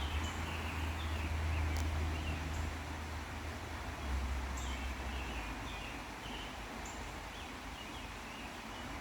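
Woodland outdoor ambience: faint short bird chirps repeating every second or so over a steady hiss, with a low rumble that eases about halfway through.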